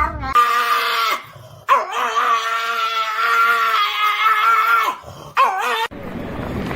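Dog howling: a short howl, then one long drawn-out howl of about three seconds with a wavering pitch, then a brief one.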